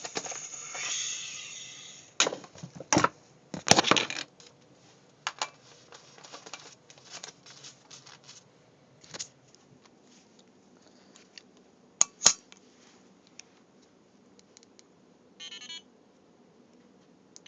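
Compressed air hissing as the tank is screwed onto an Ego 11 paintball marker, fading out after about two seconds. Then come clicks and knocks of the marker being handled, two sharp loud clicks close together about 12 seconds in, and a short electronic beep about 15 seconds in.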